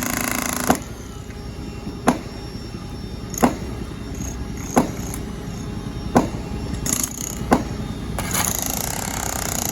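Six sharp knocks at an even pace, about one every second and a half, over a low steady background rumble, with a short rise of noise near the end.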